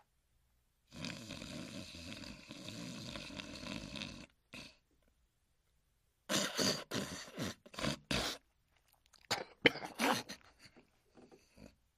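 Snoring: one long drawn-out snore lasting about three seconds, then after a pause a run of short, irregular snorts and sputtering throat noises.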